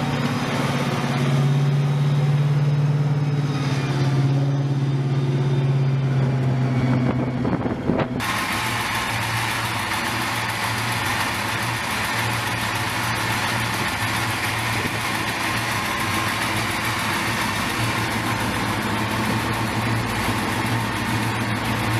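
Bradley Fighting Vehicle's diesel engine running steadily. About eight seconds in, the sound switches abruptly to a lower, steady idle with more hiss.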